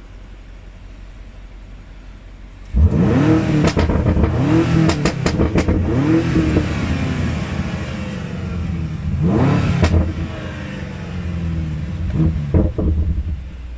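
BMW F90 M5 Competition's twin-turbo V8 revved in the stand: low and steady for the first few seconds, then about three seconds in it is blipped repeatedly, with a bigger rev about nine and a half seconds in and two quick blips near the end.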